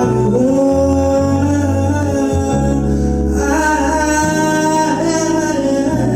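Live band music: guitar over a bass line that changes note every second or so, with a sung melody of long held notes.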